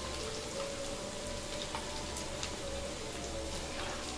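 Potato-onion vadai deep-frying in hot oil in a kadai as they turn golden: a steady sizzle with scattered pops and crackles.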